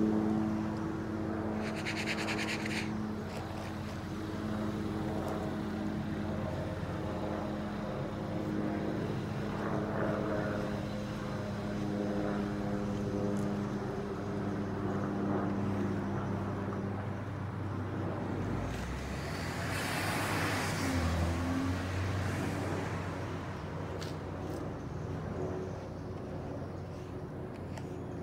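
A motor vehicle engine running steadily, with another vehicle passing by about two-thirds of the way through.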